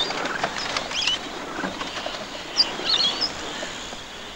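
Small parrots giving a few short, high chirps as they fly off from opened aviary cages.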